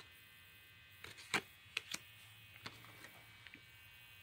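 Faint clicks and light taps from baseball trading cards being handled as one card is swapped for the next: a few short sharp sounds a second or two in, over a faint steady hum.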